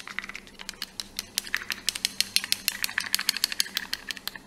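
Yellow plastic spoon stirring aloe vera gel in a small plastic jar, clicking rapidly against the jar's sides, several clicks a second, until it stops near the end.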